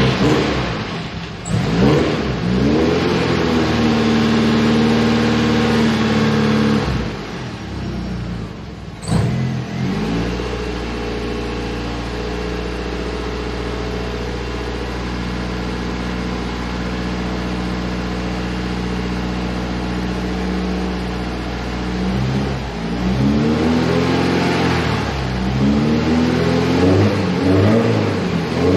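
Mercedes 190E engine revved a few times, then settling to a steady idle for about ten seconds, then blipped repeatedly near the end. There is a single sharp knock about nine seconds in.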